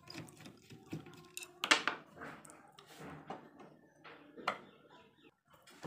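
Screwdriver working the back-panel screws out of a home-theatre subwoofer cabinet: scattered small metal clicks and scrapes, the sharpest just under two seconds in and another about four and a half seconds in.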